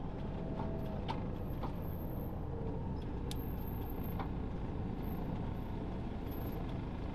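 Motorhome driving, heard from inside the cab: a steady low engine and road rumble, with a few faint clicks.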